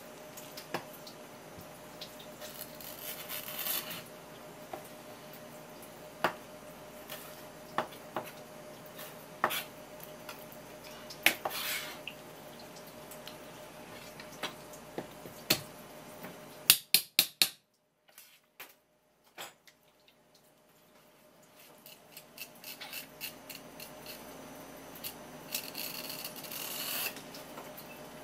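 Kitchen knife and hands working a conger eel on a wooden cutting board: scattered taps and knocks on the board with a few short scraping and rubbing passages. A faint steady hum runs under the first half, and around the middle a quick run of clicks is followed by a moment of near silence.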